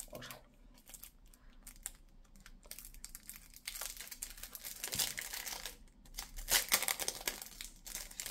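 Thin washi-paper sticker sheets crinkling and rustling as hands bend and pull them apart, with louder crackly spells in the second half.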